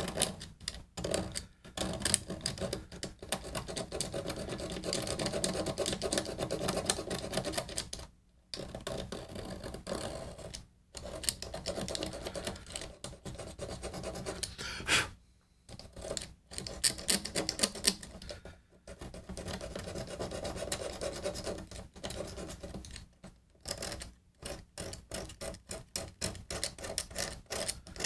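A small hand tool scraping old glue out of the binding channel along the edge of a 1956 Martin acoustic guitar: rapid, short scratching strokes in runs, broken by several brief pauses.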